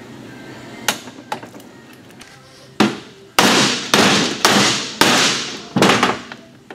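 A hammer striking a 240SX differential housing on the bench during setup: two light taps, then six hard blows about two a second, each ringing briefly.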